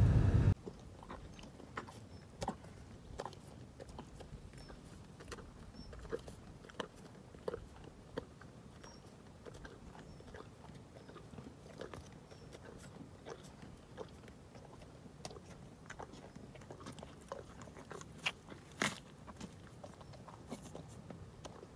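A donkey chewing carrots, with scattered crisp crunches at irregular intervals and a couple of louder bites near the end. It opens with half a second of much louder noise from a moving car that cuts off abruptly.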